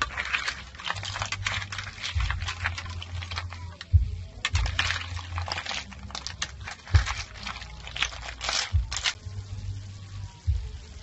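Snail shells clattering in a metal frying pan, many quick clicks with a few dull knocks, and water poured into the pan around the middle.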